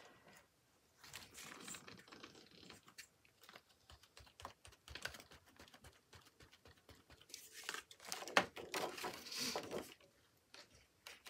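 Soft, irregular tapping as a round sponge dauber dabs paint through a plastic stencil onto a paper journal page, with rustling of the plastic stencil sheet. The tapping and rustling grow denser and louder for a couple of seconds starting about seven and a half seconds in.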